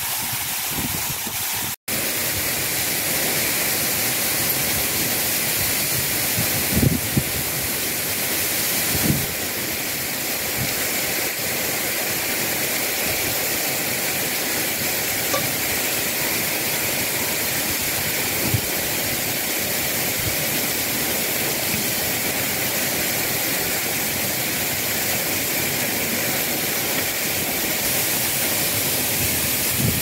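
Steady rushing of a waterfall close by, an even wash of falling water that cuts out for an instant about two seconds in, with a few soft knocks over it.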